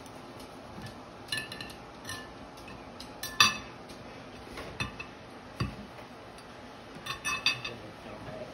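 Knife and fork clinking and scraping against a plate while cutting fried chicken and waffle: scattered short clicks, the loudest about three and a half seconds in, and a quick run of clinks near the end.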